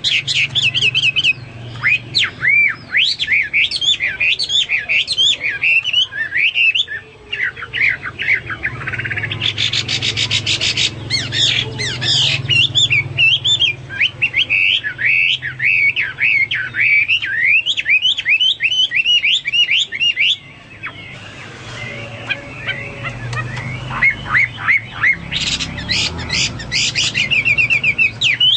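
Chinese hwamei (melodious laughingthrush) in full, energetic song: a fast, continuous run of loud whistled notes sweeping up and down, repeated in quick series. Twice it breaks into a rapid buzzy trill, and it goes softer for a few seconds about two-thirds of the way through.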